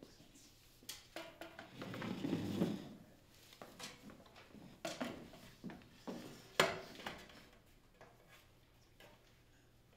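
Scattered knocks, clicks and rustling of handling as players settle onto a wooden bench and a microphone stand is positioned, with a longer rustle about two seconds in and one sharp knock about two-thirds through.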